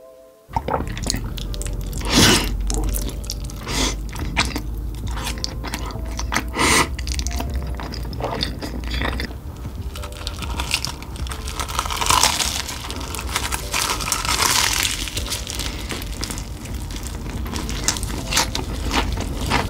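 Close-miked crunching and chewing of crispy fried chicken: a dense run of cracking crunches from the breading, with several sharper bites along the way.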